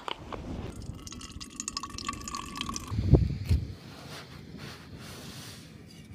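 Water being poured or filled into a container, trickling with a ringing tone for about two seconds, followed by a loud dull thump.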